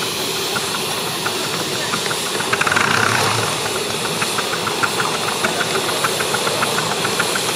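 A 7¼-inch gauge Black 5 live-steam locomotive working a train: a steady hiss of steam, then, about two and a half seconds in, a louder rush and a run of regular clicks, about four a second.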